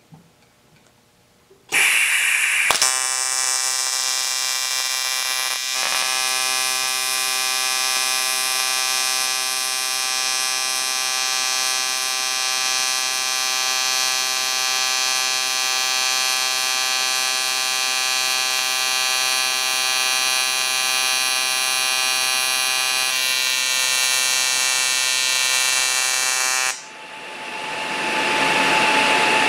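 AC TIG welding arc on aluminum from an ESAB Rebel 205ic: a brief hiss as the arc strikes about two seconds in, then a steady, loud buzz with many tones for about 24 seconds that cuts off suddenly. A steady rushing noise rises in near the end.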